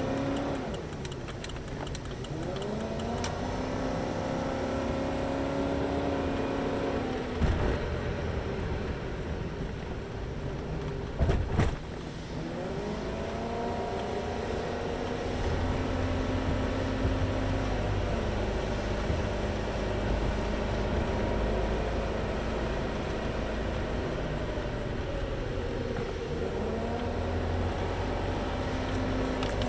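Car engine heard from inside the cabin, pulling away from a stop and picking up speed, its pitch rising and dropping back several times as it shifts up through the gears, with road rumble beneath. Faint turn-signal ticking in the first few seconds, and two short sharp thumps about 7 and 11 seconds in.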